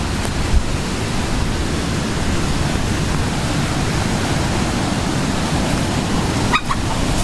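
Wind buffeting the microphone over the rushing wash of surf breaking on shoreline rocks: a steady, deep, noisy roar with no let-up.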